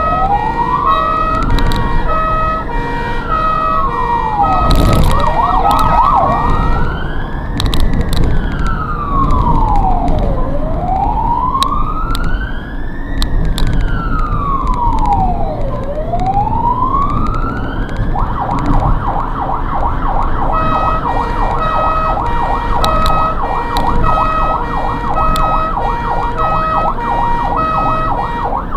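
Ambulance siren heard from the responding ambulance: a slow wail rising and falling about every five seconds, which switches about two-thirds of the way through to a fast yelp. A separate alternating two-note tone runs alongside, over steady road noise, with a brief thump and a short burst of quick warble about five seconds in.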